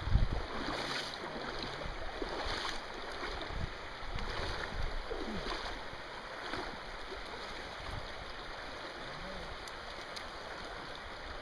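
Flowing river water, a steady rush.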